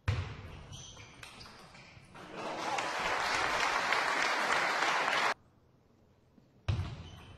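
Spectators applauding a won point in a table tennis match. The clapping swells about two seconds in, holds for about three seconds, then cuts off abruptly.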